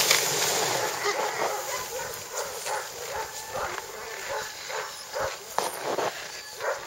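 Sled dogs barking and yelping in a quick, irregular string of short barks.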